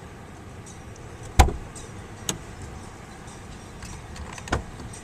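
Wind buffeting the microphone as a steady low rumble, with a sharp knock about a second and a half in and two lighter knocks later.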